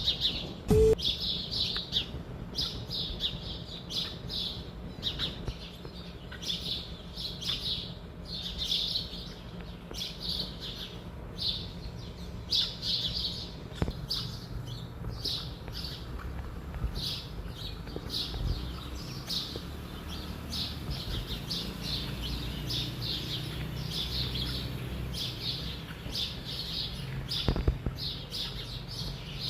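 Birds calling in a steady stream of short, high chirps, several overlapping.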